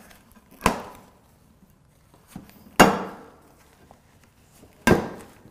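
Three sharp knocks with a short ring, the middle one loudest: Lone Wolf D'Acquisto metal climbing sticks clunking against a wooden tabletop as they are unwrapped.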